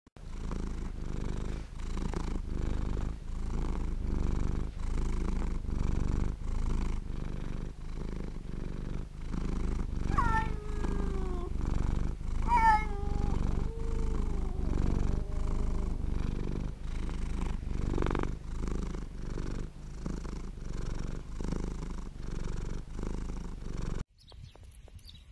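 Domestic cat purring in a steady rhythmic cycle, with two short falling meows about ten and twelve and a half seconds in. The purring cuts off suddenly about a second before the end.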